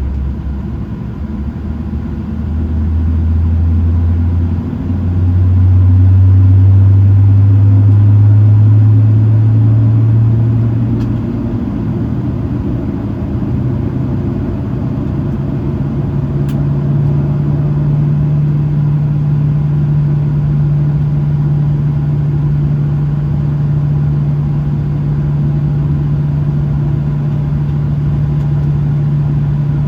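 The Boeing 737-700's CFM56-7B jet engines heard from inside the cabin: a loud, low hum that rises in pitch in steps over the first dozen seconds, then holds steady at a higher pitch.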